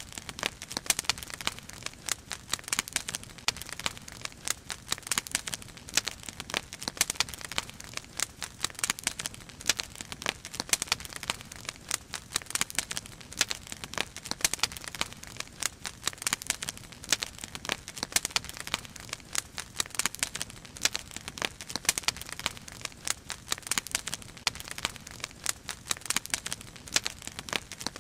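Wood fire crackling, with irregular sharp pops and snaps over a soft hiss.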